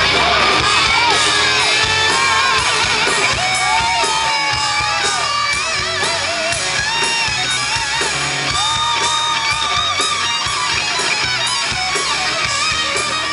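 Hard-rock band playing live through a concert sound system: distorted electric guitars with bending notes over a steady drum beat, with shouting from the crowd.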